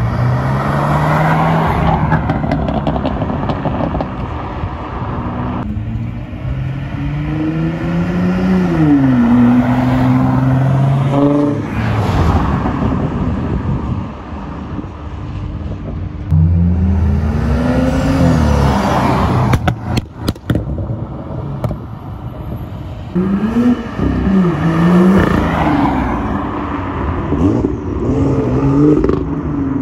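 Performance car engines revving hard as cars pull away one after another, each engine note climbing and dropping back with the gear changes. A few sharp cracks come about two-thirds of the way through, and there is quick up-and-down revving near the end.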